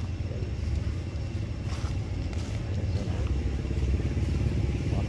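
Low, steady rumble of an engine idling, with a faint click about two seconds in.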